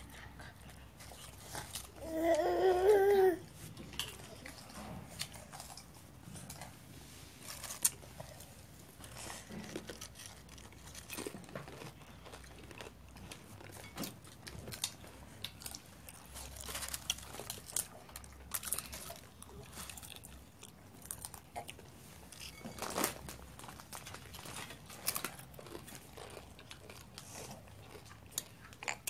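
Potato crisps crunching and being chewed, with many short sharp crackles throughout. About two seconds in, a brief high wavering vocal cry is the loudest sound.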